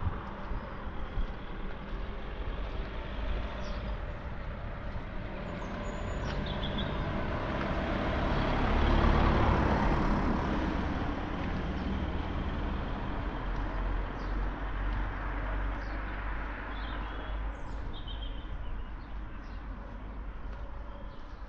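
A road vehicle passing: its noise grows to a peak about nine seconds in and then fades away. Birds chirp now and then over it.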